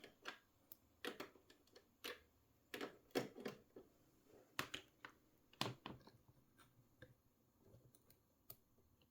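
Faint, irregular clicks and taps of small plastic connectors and cables being handled while power is connected to an LED controller board.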